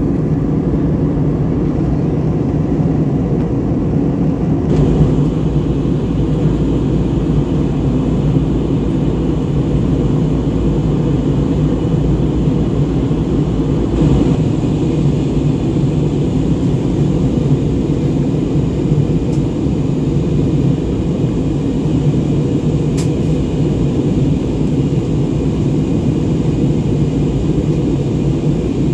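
Steady low cabin noise of an Airbus A320-family airliner in cruise: jet engines and airflow heard from a window seat beside the wing. The sound shifts slightly about five seconds in and again around fourteen seconds.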